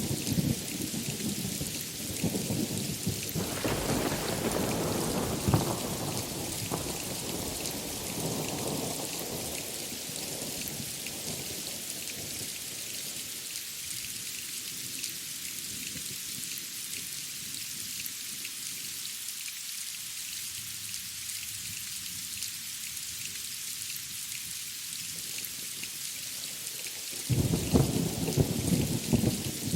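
Thunderstorm: steady rain hiss throughout, with a thunder rumble fading away over the first several seconds, then a new loud roll of thunder breaking in near the end.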